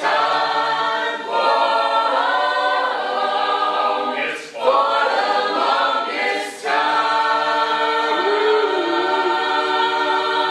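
An a cappella vocal group singing in close harmony, with several voices holding chords together and no instruments. The phrases break briefly a few times, and the last chord is held for about four seconds near the end.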